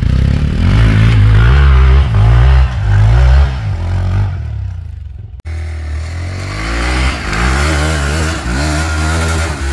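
Motorcycle engine revving on an off-road trail, its pitch rising and falling with the throttle. A short break about five seconds in.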